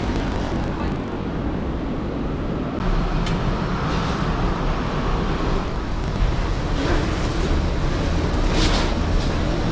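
Steady rumble and air noise in a parked Airbus A320's cabin during boarding, from the ventilation and auxiliary power, growing a little louder about three seconds in, with a few faint knocks.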